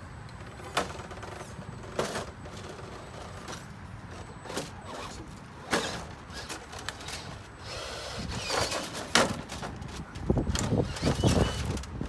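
Vaterra Ascender K5 Blazer RC rock crawler's small electric motor and drivetrain running in short spurts, with sharp clicks and knocks from the truck on rock; a single knock about a second in, another at two seconds, then busier knocking and rumbling over the last few seconds.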